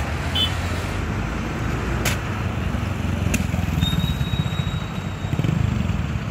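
Heavy-haul tractor truck's diesel engine running with a steady low rumble as it pulls a long multi-axle trailer slowly along the road. Two short sharp clicks about two seconds in and again a second or so later.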